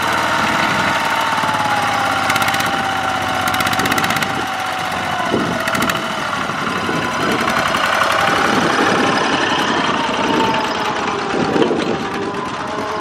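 Single-cylinder diesel engine of a two-wheel walking tractor running hard under load, hauling a trailer of rice sacks through deep mud. The engine note sags a couple of seconds in and picks up again later.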